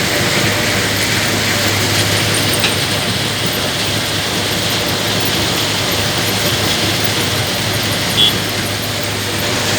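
Caterpillar 320 GC excavator's diesel engine running steadily under load, with a short click about two and a half seconds in and a brief high squeak near the end.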